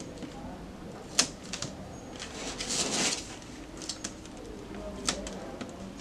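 Cardstock being handled while the backing is peeled off red high-tack double-sided tape: a sharp tap about a second in, a longer rustling peel in the middle, and another tap near the end.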